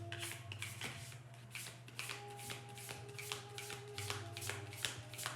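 A deck of tarot cards being shuffled by hand: a quick, even run of soft card snaps, about four a second.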